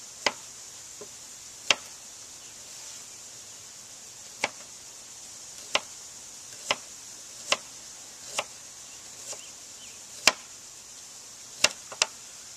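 Kitchen knife slicing a fresh radish into rounds, each cut ending in a sharp knock on a plastic cutting board: about a dozen single knocks spaced irregularly around a second apart, two in quick succession near the end.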